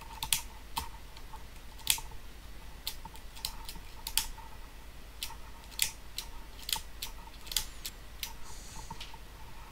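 A cable's jack plug being pushed into and pulled out of the Logitech Z213 control pod's audio jack again and again, a string of sharp, irregular clicks. This works freshly applied contact cleaner into the jack's intermittent, high-resistance contacts.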